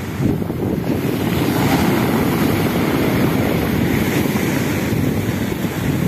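Black Sea surf breaking and washing up over a pebble beach, a steady rushing wash of water, with wind buffeting the microphone.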